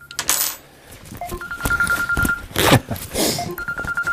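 Telephone ringing: a fast-pulsing electronic ring tone that comes back about every two seconds. Loud rustling and handling noises fall between the rings.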